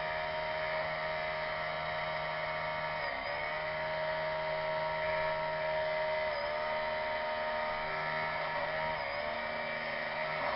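Electric drill motor running with a steady whir. Its speed sags briefly and comes back up three times, about every three seconds.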